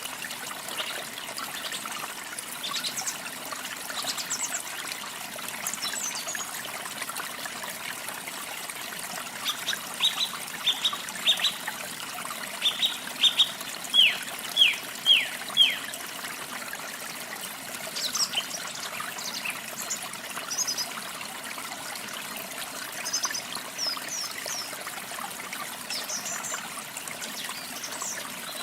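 Small birds chirping over a steady trickling stream. A run of loud, quick down-sliding chirps comes in about a third of the way through, and fainter, higher calls follow later.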